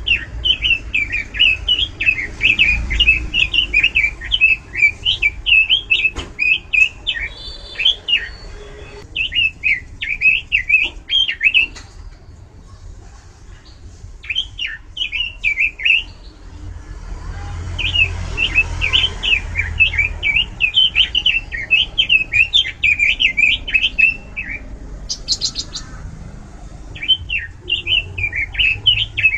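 Pekin robin (red-billed leiothrix) singing loudly, a fast warbling song delivered in bursts of several seconds with short pauses between them, with a brief high buzzy note in one pause near the end.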